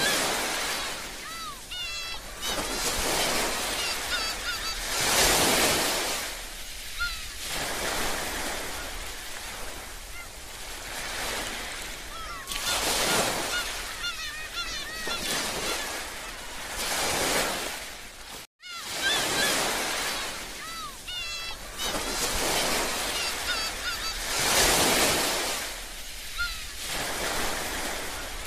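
Ocean waves washing onto a beach, swelling and ebbing every few seconds, with birds calling over them. The sound cuts out briefly about two-thirds of the way through, then the same wave-and-bird loop starts over.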